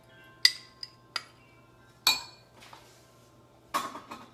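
Metal spoons and kitchen dishes clinking: several sharp, separate clinks with a short ring, the loudest about half a second in and another about two seconds in, then a brief clattering scrape near the end.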